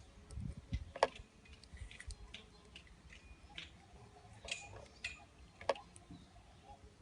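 Jilguero jarillero finch eating seed: scattered sharp clicks and taps of its bill pecking and cracking seeds, irregularly spaced.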